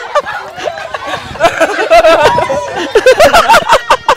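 Children and adults laughing and chattering, with repeated short bursts of laughter.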